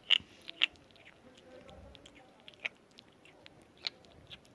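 Kitten chewing its food, with sharp, irregular clicking crunches: several close together near the start, then one every second or so.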